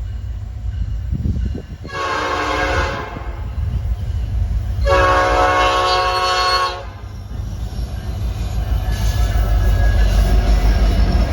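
Norfolk Southern freight locomotive's air horn sounding twice, a short blast and then a longer one, each a chord of several steady tones, over the low rumble of the oncoming intermodal train, which grows louder near the end.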